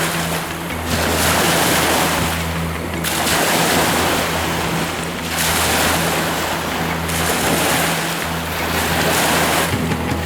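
Wind-driven lake waves washing onto the shore in surges every two to three seconds, with wind on the microphone and a steady low hum underneath.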